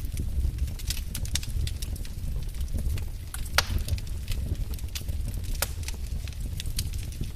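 Fireplace wood fire crackling: a steady low rumble with irregular sharp pops and snaps, two of them louder, about three and a half and five and a half seconds in.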